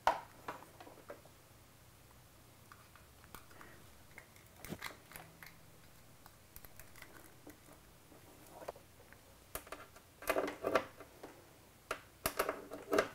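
Audio cables being handled and plugged in: RCA plugs pushed into an HDMI-to-composite converter and quarter-inch phone plugs into a mixing console's input jacks, giving scattered light clicks and rustles, with a run of sharper clicks in the last few seconds.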